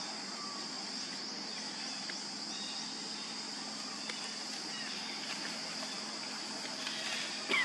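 Steady high-pitched drone of insects, with faint short chirps and ticks over it. Near the end a brief, louder squeal falls in pitch.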